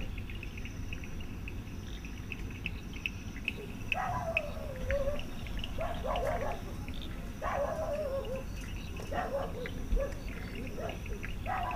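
Crickets chirping steadily in a fast, even trill. From about four seconds in, an animal gives a string of short falling cries, each dropping in pitch over about a second, repeated every second or so.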